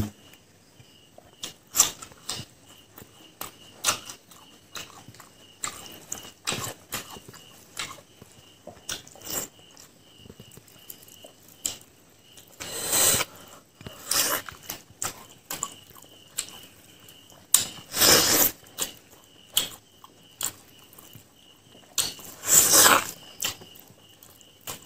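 Close-miked eating sounds from a hand-eaten meal of fried pork leg, rice and king chilli: steady wet chewing and lip smacking, with a few louder, longer slurping mouth sounds spaced through it.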